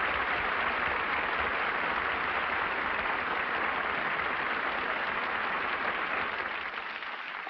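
Studio audience applauding, a steady dense clatter of many hands that tapers off near the end.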